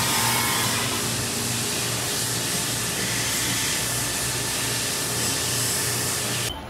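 A 2000 Haas VF-6 vertical machining center milling a metal plate with an end mill: a steady hiss over a low pulsing hum, with a faint whine fading out in the first second. The sound drops off sharply near the end.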